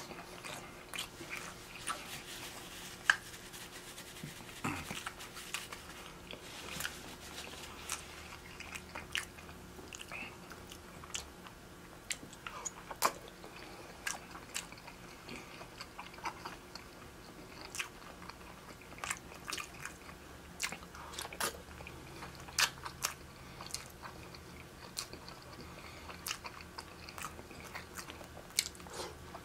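Close-miked eating of seafood: biting and chewing, with frequent short, sharp clicks and crackles throughout.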